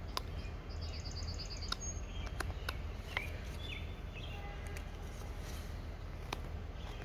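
Birds chirping, with a quick, even trill about a second in and a few short chirps after it. A handful of sharp ticks are scattered through it: a carving knife cutting into the end grain of a piece of sugar pine.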